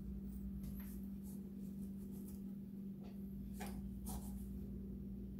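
Stainless steel santoku knife working through beef short ribs on a cutting board: a few faint, short scraping clicks, the clearest about three and a half and four seconds in, over a steady low hum.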